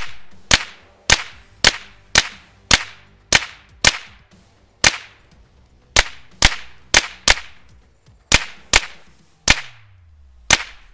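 Grand Power Stribog SP9A3G 9mm carbine firing single semi-automatic shots in steady succession, about two a second with a couple of short pauses, some seventeen shots in all, each trailing a short echo.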